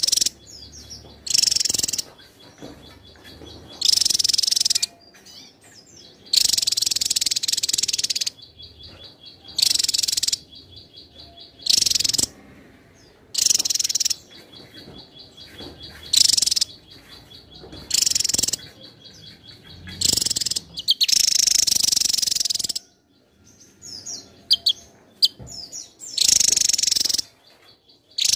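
Javan tesia singing: a loud, high-pitched song phrase repeated about a dozen times, each phrase up to about a second and a half long, with a faint rapid ticking trill in the gaps between phrases.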